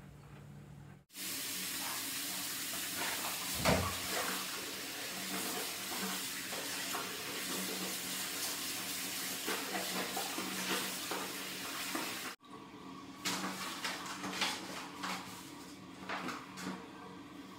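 Tap water running into a bathroom sink while a cloth rag is scrubbed and squeezed in soapy water under the stream, with splashing. The running water stops abruptly about twelve seconds in, followed by intermittent sloshing and splashes as the soaked rag is worked in the filled sink.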